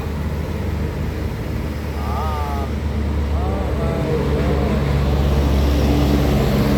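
A large tour bus's engine rumbles and grows louder about four seconds in as it draws near. Short voices call out between about two and four and a half seconds in.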